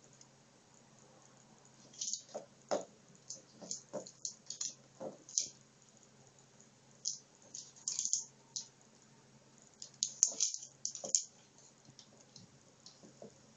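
AniOne Snackball, a plastic treat ball holding dry cat food, clicking and rattling in irregular spurts as cats paw and nose it along a wooden floor. It comes in three bursts of quick knocks, with short quiet gaps between.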